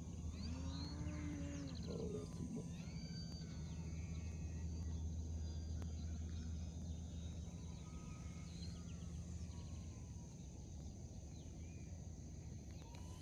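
Summer field ambience: a steady high-pitched insect drone over a low steady hum that fades after about eight seconds, with a brief low drawn-out call in the first two seconds and a few faint chirps.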